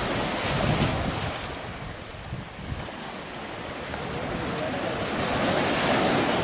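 Sea surf breaking and washing up a sandy beach, with wind buffeting the microphone. The wash dips for a moment, then a wave surges in and builds to its loudest near the end.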